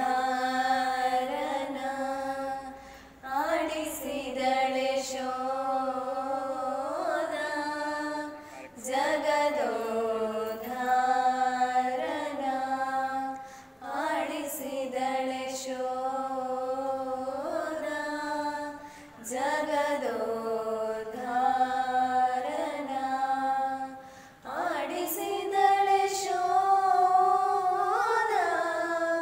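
A group of female voices singing a Kannada song in Carnatic style, holding long phrases a few seconds each with short breaths between them, with little or no instrumental backing.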